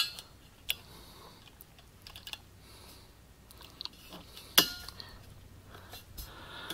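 Vise grips being set and clamped onto a tight metal fitting on a lantern's fuel tank: scattered small metal clicks and rustles, with one sharp click about four and a half seconds in.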